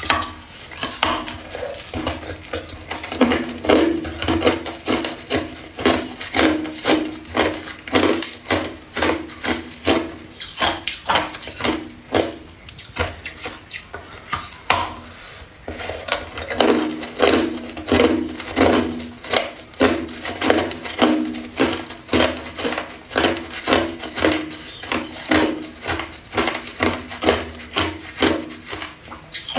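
Hard clear ice being bitten and chewed, a run of sharp crunches about two a second that thins out briefly about halfway through.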